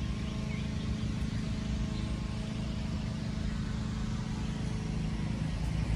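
Steady low hum of motor traffic, a constant engine drone with no change in pitch.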